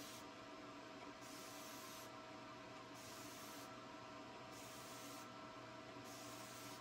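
Faint hiss of a pressurized spray bottle misting DTG pre-treatment liquid onto a cotton T-shirt in sweeping passes. The hiss swells and fades about every second and a half.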